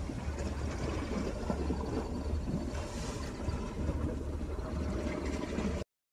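Steady low rumbling outdoor noise with a hiss above it, uneven and gusty, that cuts off abruptly near the end.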